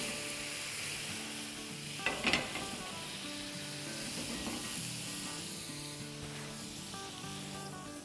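Water splashed onto a hot nonstick dosa tawa sizzling as it boils off, dying down near the end; the water is cooling the pan so the dosa batter will stick. A short louder sound about two seconds in.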